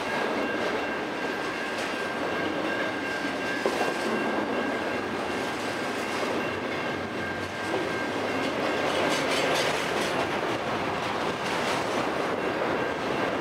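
Double-stack intermodal well cars of a freight train rolling past at speed: a steady rumble of steel wheels running on the rails. A faint steady high-pitched tone rides over it for the first half or so, then fades.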